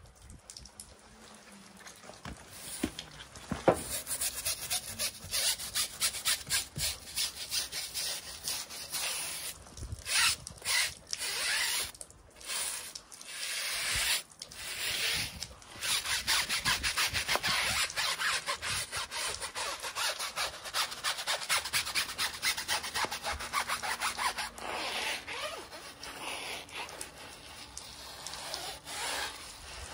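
Stiff-bristled tyre brush scrubbing a soapy tyre sidewall and alloy wheel with rapid back-and-forth strokes, pausing briefly a few times partway through.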